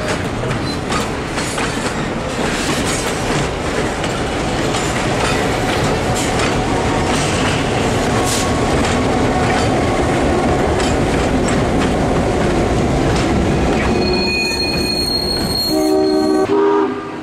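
Passenger train with trailing EMD GP9 diesel units rolling across a steel railroad bridge: a steady rumble of wheels on rail with clicking rail joints and some wheel squeal. Near the end a locomotive horn sounds a chord.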